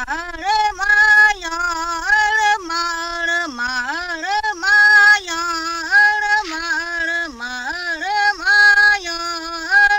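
A single woman's voice singing a slow melody, with long held notes that slide up and down between them.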